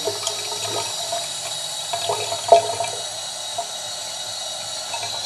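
Tap water running in a steady stream into a small plastic tub, filling it, with a brief knock about halfway through.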